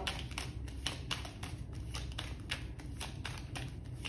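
A deck of tarot cards being shuffled by hand, the cards slapping softly against each other in a quick, even series of about five a second.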